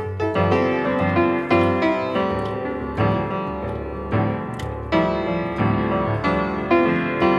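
Background piano music, notes struck at a steady pace over a repeating bass line.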